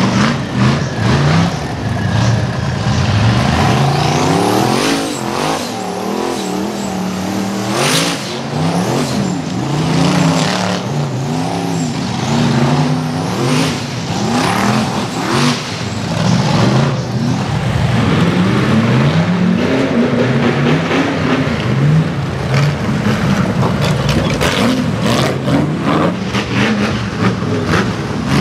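Rock bouncer buggy's engine revving hard in repeated bursts, its pitch rising and falling as the throttle is worked on a steep climb, with a few sharp bangs from the buggy striking the ground, loudest about eight seconds in.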